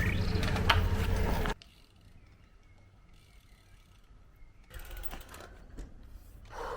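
Mountain bike riding: loud tyre and wind rumble that cuts off suddenly after about a second and a half, then near silence. Near the end comes a quieter rapid clicking, the rear hub's freewheel ratchet.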